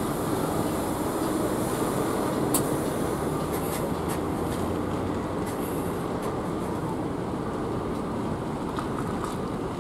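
Diesel engine of a highway coach bus idling at a stop, a steady rumble, with a few short sharp high clicks or hisses.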